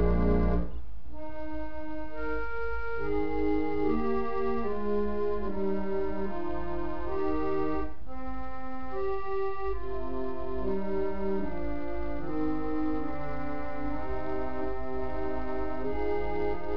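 Organ music. A full held chord cuts off just under a second in, and a slower passage begins, several voices moving in sustained notes. There is a very short break about eight seconds in.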